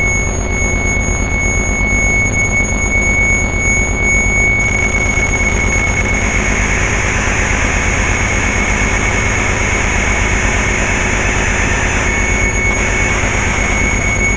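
Electronic drone-noise from DIY synthesizers: a steady high whistling tone over a dense, fluttering low buzz. A hiss swells in about a third of the way through and eases off near the end.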